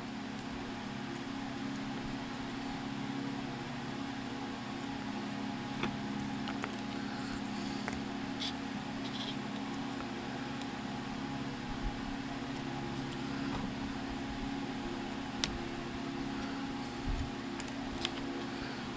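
Steady low machine hum, with a few faint light clicks scattered through and a short low thump near the end.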